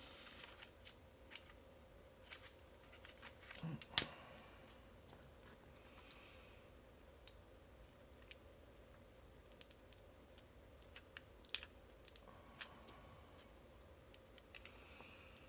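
Small metallic clicks and taps from a shim and tools being worked into a Master Lock Pro Series padlock core, with one sharp click about four seconds in and a quick run of clicks around the two-thirds mark.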